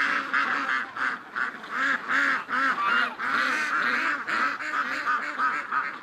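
A flock of domestic ducks and geese calling: a dense, continuous run of overlapping quacks and honks, several a second. It starts abruptly.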